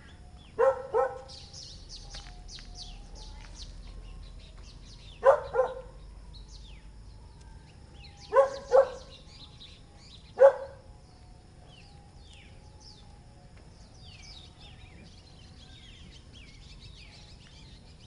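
Puppies giving short, sharp barks, mostly in quick pairs, seven in all, the last about halfway through. Small birds chirp faintly in the background throughout, in quick high notes.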